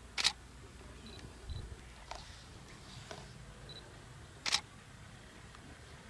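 Two sharp camera shutter clicks, about four seconds apart, over a quiet low background.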